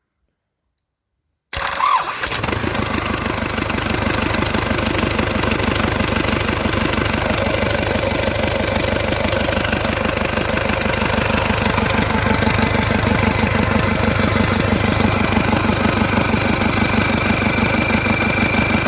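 MMZ D-245.7 four-cylinder turbodiesel starting: after a moment of silence it catches abruptly after a very brief crank, then settles into a steady, evenly pulsing diesel idle. A faint high whine rises near the end.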